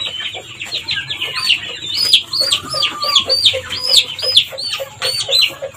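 Young chicks peeping: a fast, unbroken string of short, high, falling peeps.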